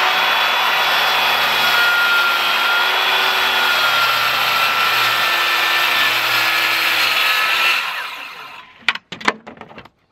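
DeWalt corded circular saw ripping a sheet of OSB, running steadily under load and then spinning down about eight seconds in. Two sharp knocks follow about a second later.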